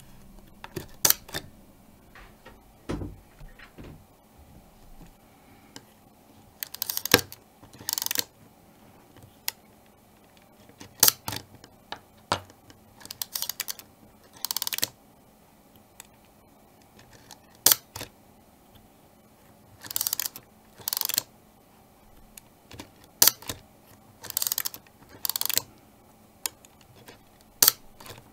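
Minolta AL-F 35 mm rangefinder being worked by hand again and again: the film advance lever wound with short ratcheting rasps, and the shutter fired with single sharp clicks, with quiet gaps between.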